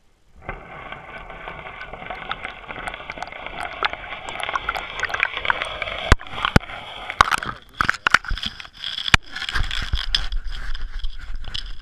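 GoPro Hero 3 in its waterproof housing being hauled up through an ice-fishing hole. About half a second in, a scraping, rushing noise starts as the housing moves up through the water. Several sharp knocks come in the middle, then fingers handle the housing in open air, with a low rumble near the end.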